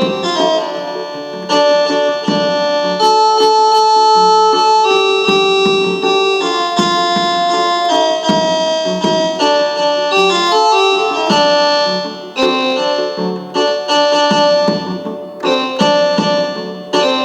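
Arabic electronic keyboard (org) playing a melody of quickly changing, held notes in a voice imitating the rababa or mizmar, with sharp percussive strokes underneath.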